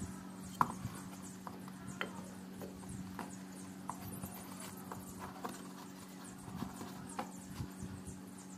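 Scattered light clicks and knocks of wooden cricket bat pieces being handled and set against each other, roughly one or two a second, over a steady low hum.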